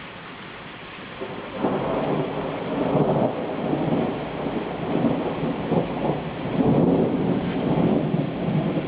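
Rolling thunder over steady rain. The rumble builds about a second and a half in, stays loud and drawn out for about seven seconds, and begins to fade near the end.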